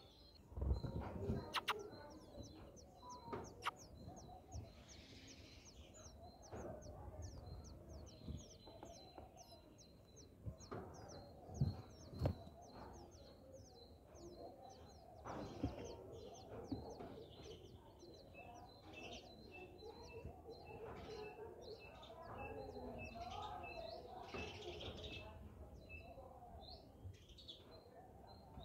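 Small birds chirping: a long run of short high chirps, two or three a second, then a lower-pitched series of chirps in the second half. Scattered knocks and rustles, the loudest near the start and around the middle.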